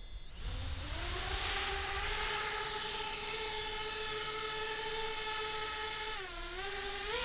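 Small FPV quadcopter's brushless motors spinning up to a steady high whine. The pitch dips briefly near the end, then rises again.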